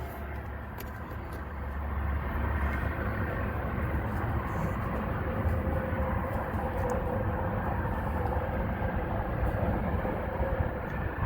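Steady low rumble of vehicle engines, with a faint humming tone; it grows a little louder about two seconds in.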